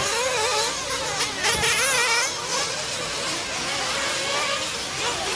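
Several nitro RC off-road buggies racing, their small glow-fuel engines buzzing at a high pitch that rises and falls as they throttle on and off around the track, with a louder burst about a second and a half in.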